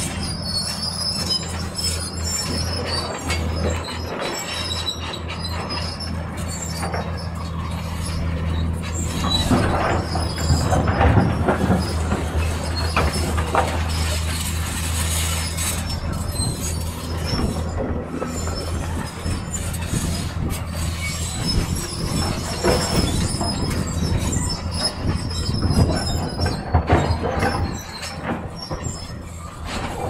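Crawler bulldozer at work: its diesel engine runs steadily under load while the steel tracks clank and squeal, louder for several seconds about a third of the way in.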